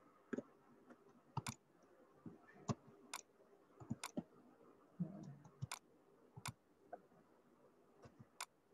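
Scattered sharp clicks of computer input, about a dozen with uneven gaps, plus a brief low sound about five seconds in.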